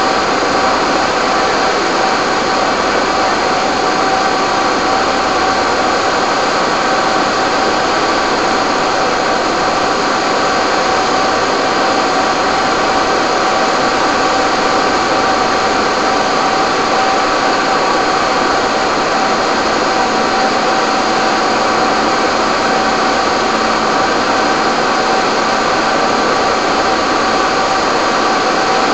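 Steady mechanical drone with a few held tones, from fire engines running their pumps at a constant speed to feed hoses and an aerial ladder's water stream.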